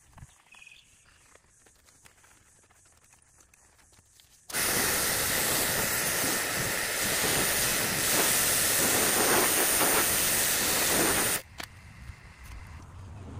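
Kärcher mini electric pressure washer jet spraying water onto a metal boat trailer frame: a loud, steady hiss that starts suddenly about four and a half seconds in and cuts off suddenly about seven seconds later.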